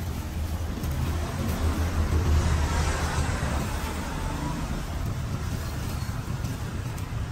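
Street traffic: a steady low engine rumble, with a motor vehicle passing close by and loudest about two to three seconds in.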